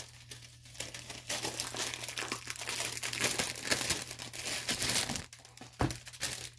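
Clear plastic packaging on a rolled diamond painting canvas crinkling as it is handled, then a light knock near the end as the roll is set down on a wooden table.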